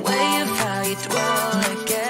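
Background pop music with a regular beat and a melody line.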